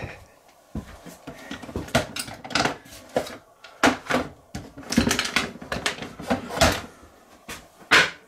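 Many irregular clicks, knocks and light rattles of small hard objects being handled and set down, the loudest near the end.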